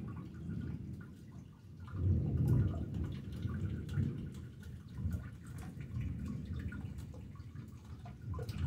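Rain dripping and pattering during a thunderstorm, under a low rolling rumble of thunder that swells about two seconds in and keeps surging.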